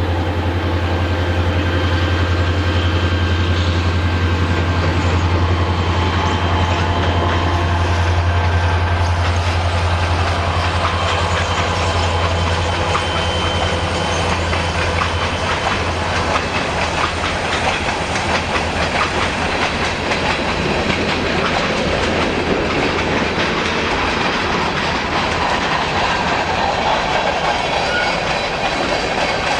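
Freight cars of an Escanaba & Lake Superior train rolling steadily past over the crossing, wheels clacking over the rail joints. A steady low hum underlies roughly the first half.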